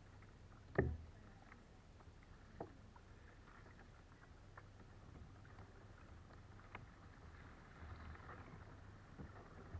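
Kayak paddling: paddle blades dipping in calm water with faint drips and trickles, and a sharp knock about a second in, with a softer one near three seconds.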